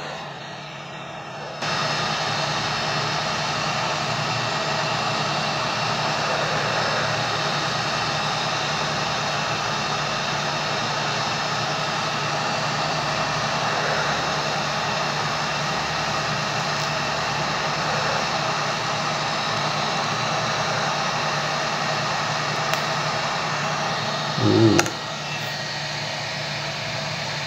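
Hot-air rework gun blowing a steady rush of air, heating a laptop chipset to melt its solder balls. It jumps louder about two seconds in and continues evenly. A brief low sound comes near the end, after which the rush is softer.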